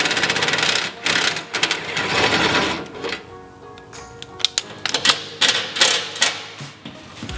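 Pneumatic tool hammering in rapid bursts, three in the first three seconds, with steady background music underneath and occasional clicks afterwards.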